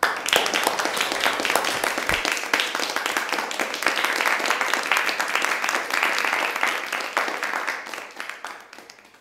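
Applause: a dense patter of hand claps that starts suddenly and fades out near the end.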